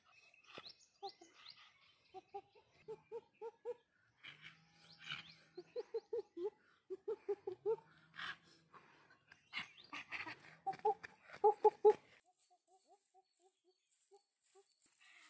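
Chickens clucking: repeated runs of three to five short, quick notes, loudest about three quarters of the way in and softer near the end.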